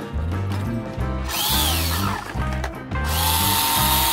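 WPL D12 RC truck's brushed electric motor and gear drivetrain running with the wheels spinning in the air, revved in two bursts: a short whine that rises and falls about a second in, then a second run from about three seconds in that rises and holds steady. Background music with a steady beat plays underneath.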